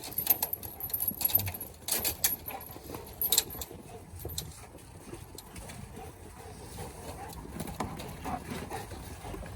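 Goats feeding on grain: scattered clicks, knocks and rattles as they jostle at the feed, heaviest in the first few seconds and thinning out after.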